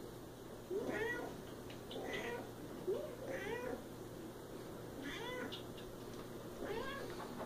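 Siamese cat meowing repeatedly, about five calls in a row, each rising and then falling in pitch.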